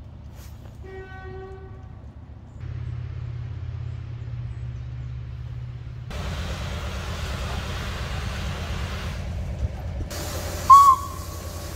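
Outdoor railway-station ambience with a low, steady rumble, a faint held whistle-like tone about a second in, and one short, shrill whistle toot near the end that rises sharply in pitch as it starts and is the loudest sound.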